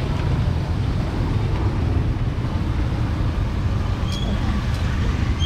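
Steady rumble of street traffic with an even background hubbub. A short, faint high tone sounds about four seconds in and again near the end.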